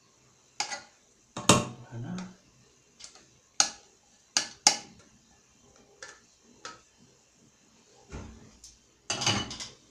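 A spatula knocking and scraping against a stainless-steel saucepan as thick béchamel sauce is scraped out into a steel pot: a string of separate sharp metal clinks with short scrapes between them.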